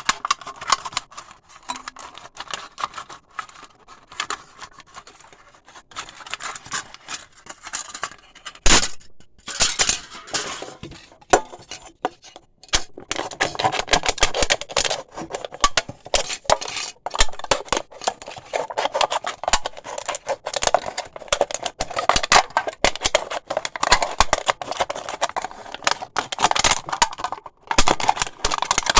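Razor blade cutting and scraping through thin aluminium pop cans: a dense run of crackling clicks and scrapes, with one sharp knock about nine seconds in and thicker, harsher scraping through the second half.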